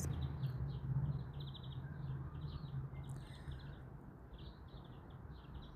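Songbirds chirping: runs of short, quick, high chirps repeated over and over, faint, over a steady low hum.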